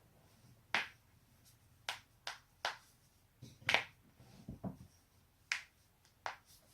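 Joints being cracked: about nine short, sharp pops at irregular intervals, the loudest a little past the middle.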